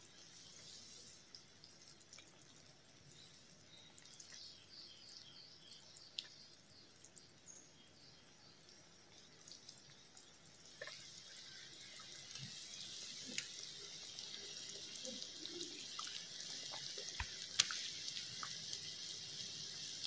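Tamarind fish curry simmering in an aluminium pot: a faint, steady bubbling hiss with small plops and scattered clicks as fish pieces are slipped in with a spoon. The bubbling grows a little louder around the middle.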